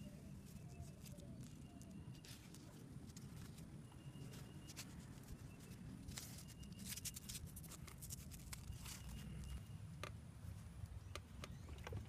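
Faint rustling and scattered soft crackles as a velcro strap is wrapped around a scooter's brake lever and pressed closed, over a low steady outdoor rumble.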